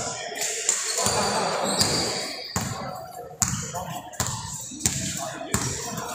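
A basketball bouncing on a court floor: a run of sharp bounces about every three-quarters of a second in the second half, as in dribbling, with voices in the background.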